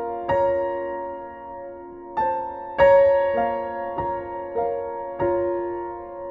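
Slow, gentle background piano music: single notes and soft chords struck every half second to two seconds, each ringing on and fading.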